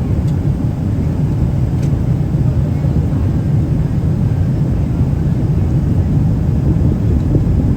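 Boeing 777 cabin noise: a steady low rumble of engines and airflow heard from inside the economy cabin.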